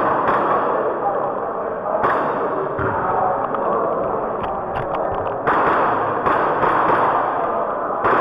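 Gas blowback airsoft pistol firing a string of sharp shots, several close together in the second half, over a steady rushing noise.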